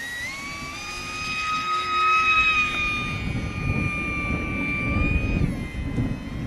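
Electric motor and propeller of an OMP Hobby S720 Sport micro RC airplane whining in flight, rising sharply as the throttle opens, holding steady, then stepping down in pitch about five and a half seconds in. Wind rumbles on the microphone underneath.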